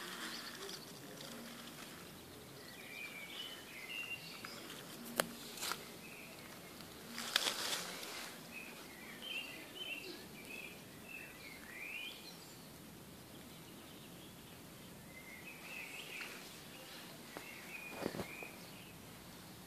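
Quiet outdoor ambience with small birds chirping on and off, and a few soft wet clicks and smacks from a tortoise biting and chewing a ripe tomato. The loudest is a short burst about seven seconds in.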